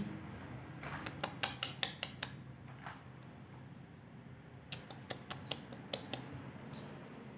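Small bell on a cat's collar jingling faintly in two short bursts of light metallic clinks as the cat moves, one about a second in and another about five seconds in.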